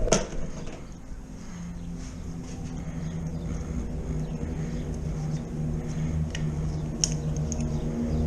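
A click, then a steady low engine hum that sets in about a second and a half in and grows gradually louder.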